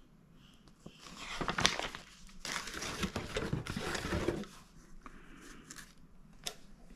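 Plastic packaging crinkling and rustling as it is handled, in two spells of a second or two each, followed by quieter handling and a single sharp click near the end.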